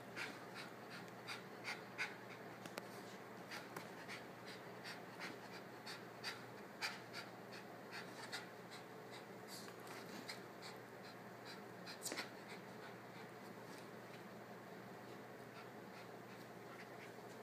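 West Highland white terrier humping a large plush stuffed dog: faint, irregular scratchy rustles and clicks of fur rubbing on the plush, with light panting. The rustling thins out after about thirteen seconds.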